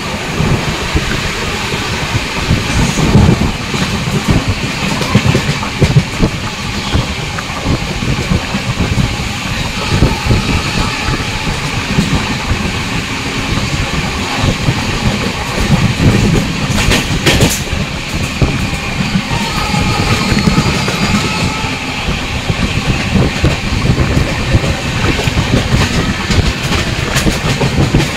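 Passenger train coach running at speed: wheels clattering over the rail joints over a steady rumble, with one sharp metallic clunk a little past halfway.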